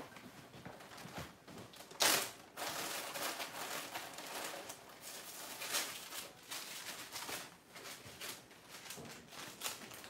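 A thin plastic piping bag being handled, rustling and crinkling, with a sharp loud rustle about two seconds in.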